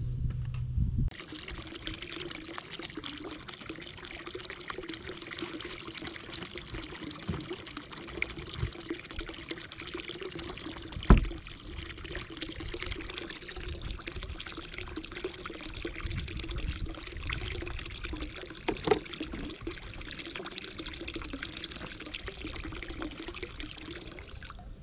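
Water pouring and trickling steadily over a low, steady hum, with a sharp knock about eleven seconds in and a smaller one a few seconds before the end.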